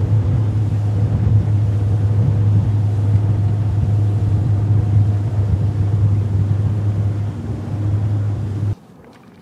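Bass boat's outboard motor running at speed across the lake, a steady low drone. It cuts off abruptly near the end.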